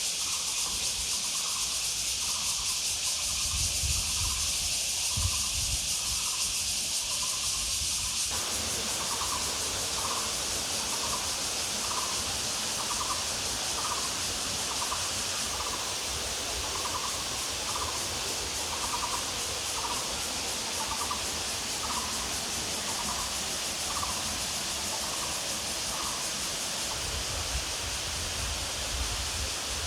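Mountain stream or waterfall rushing as a steady hiss, which fills out lower down about eight seconds in. Over it, an animal gives a short call a little over once a second, over and over, stopping a few seconds before the end.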